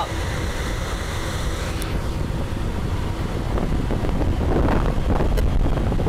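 Belt-driven blower of a Carrier rooftop unit running on a temporary, slightly loose belt that has a little flop in it, under a low wind rumble on the microphone. A rustling noise rises about four to five seconds in.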